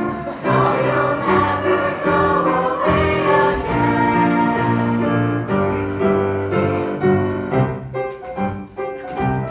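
A youth choir singing with instrumental accompaniment.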